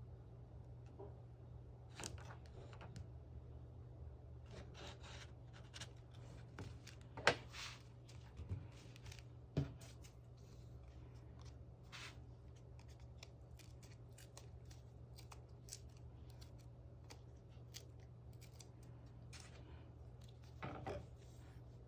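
Paper-craft sounds: scissors snipping and paper or stickers being rubbed and peeled in short, scattered sounds, with a couple of sharper taps, over a steady low hum.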